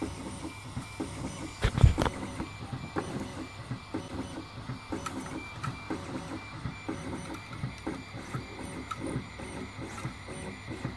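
Cocoon Create FDM 3D printer running, its stepper motors buzzing and whirring in short, constantly changing strokes as the print head moves over the infill. A single knock sounds about two seconds in.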